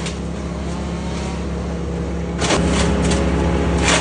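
A motor running steadily with a low, even hum. It steps up in loudness about two and a half seconds in, and two sharp clicks come about a second and a half apart.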